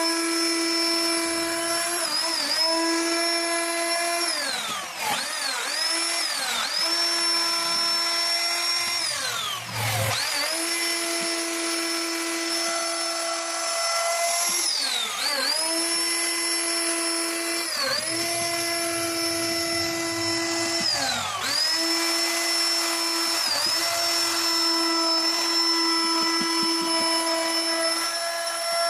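CNC router spindle running at high speed while carving wood: a steady whine that sags in pitch and recovers every few seconds as the cut goes on.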